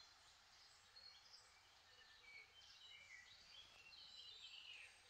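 Near silence with faint birds chirping in the background: many short, high chirps and a few falling notes over a light hiss.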